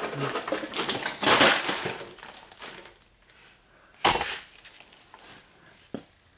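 Metal hand tools being handled, rustling and scraping for the first few seconds, then one sharp knock about four seconds in as a tool is set down, and a small click near the end.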